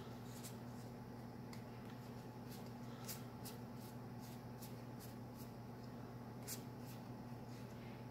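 Quiet room tone: a steady low hum with faint, scattered clicks and ticks, the two clearest about three seconds in and about six and a half seconds in.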